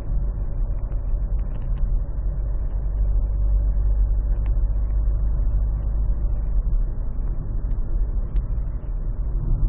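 Citroën C4 1.6 HDi four-cylinder turbodiesel running steadily, with a few sharp clicks scattered through it. The clicks are the unidentified clicking the owner hears when accelerating between about 1700 and 3200 rpm.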